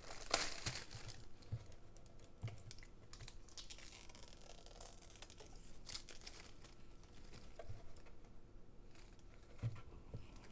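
Clear plastic bag crinkling and rustling as a mini UPS unit is slid out of it, loudest about half a second in. Scattered crackles follow, with a few soft low knocks as the unit is handled on the bench.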